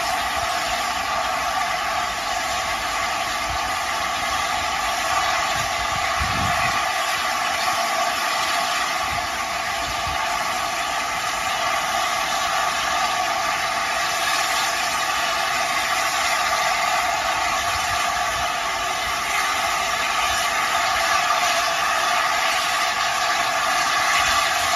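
Standing steam locomotive hissing steadily: a continuous, even rush of escaping steam that barely changes in level. A brief low thump comes about six seconds in.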